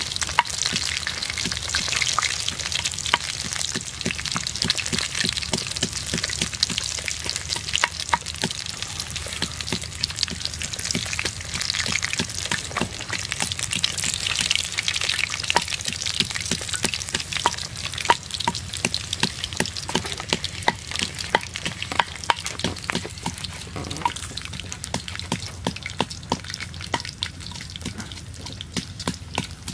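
Whole catfish frying in hot oil in a pan: a steady, dense sizzle full of small pops and crackles, slightly quieter over the last few seconds.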